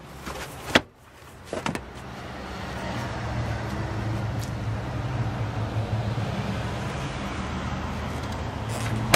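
Handling of a car trunk: a sharp knock about a second in as the trunk floor cover is let go, then a steady low engine hum from another car running nearby. The trunk lid is slammed shut with a loud bang at the very end.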